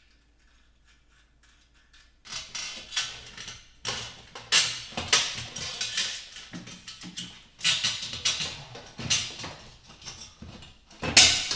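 Handling sounds from a metal over-the-range microwave mounting bracket being positioned against the wall: a run of irregular scrapes and rustles that starts about two seconds in.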